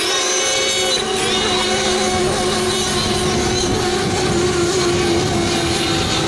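Several radio-controlled FSR-O 7.5 racing model boats with small two-stroke glow engines, running at full throttle in a high-pitched whine. Their pitches shift as the boats pass, with one engine's tone gliding about a second in.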